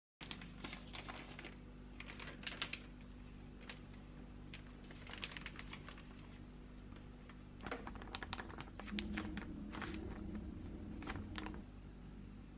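Plastic flour packet crinkling and rustling as glutinous rice flour is shaken out of it into a glass bowl, in several short clusters of crackles and light taps over a steady low hum.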